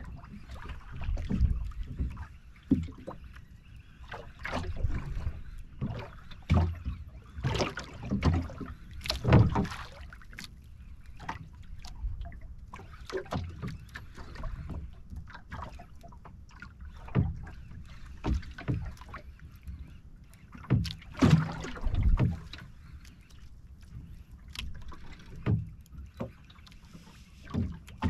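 Water slapping and knocking irregularly against the hull of a small outrigger boat (bangka) rocking at sea.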